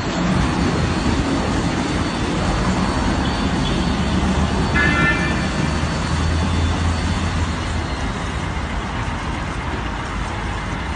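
Steady road-vehicle noise with a low hum, like a car moving along a road, starting abruptly. About halfway through there is a brief high-pitched sound.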